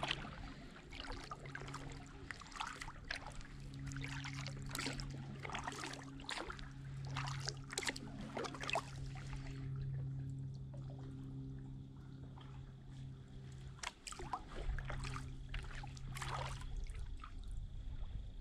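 Kayak paddle strokes: water dripping and trickling off the blades in quick, irregular splashes, thinning out about halfway through, over a steady low hum.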